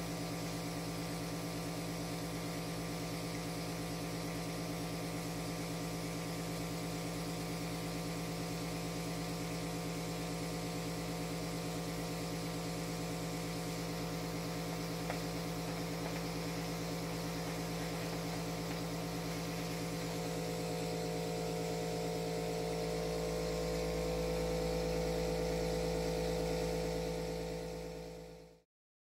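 Electric vacuum suction pump running with a steady hum, a little louder in the last few seconds, then fading out just before the end as the pump is stopped.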